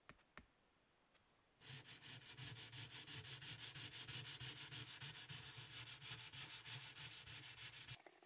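P1000 sandpaper rubbed by hand in quick, even back-and-forth strokes over a painted cast iron sign, starting about a second and a half in and stopping abruptly near the end. Two light clicks of the paper being handled come at the very start.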